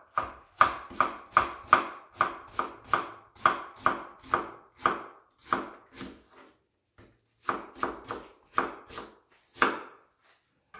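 Kitchen knife dicing a white onion on a wooden cutting board: a steady run of sharp knocks of the blade on the board, about two or three a second, with a short pause a little past halfway before the chopping resumes.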